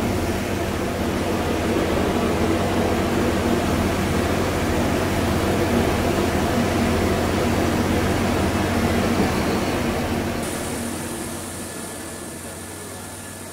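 A steady, loud engine-like drone with a low hum, which becomes quieter with a hissier tone over the last few seconds.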